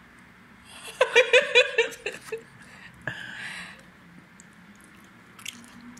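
A person laughing: a quick run of chuckling 'ha' pulses about a second in, then a softer, breathy laugh around three seconds in.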